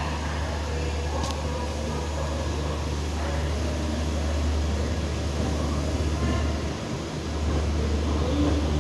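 Passenger train coaches rolling slowly along a station platform, heard from the coach doorway: a steady low rumble that dips briefly about seven seconds in.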